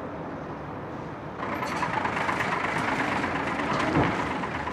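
Road vehicle noise: a steady engine rumble and tyre hiss that starts abruptly and grows louder about a second and a half in.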